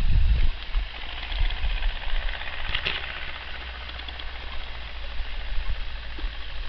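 Wind buffeting an open-air microphone: a low rumble, strongest in the first half-second, over a faint steady hiss, with one short sharp sound about three seconds in.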